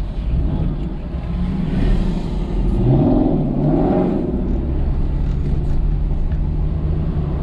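Car engine and exhaust accelerating, with an engine note that rises about three seconds in and then settles into a steady drone, heard from inside a following car's cabin with road noise.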